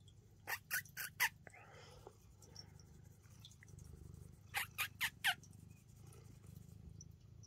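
Short, sharp animal chirps: four in quick succession about half a second in, then another four about four and a half seconds in, some sliding down in pitch, over a low steady hum.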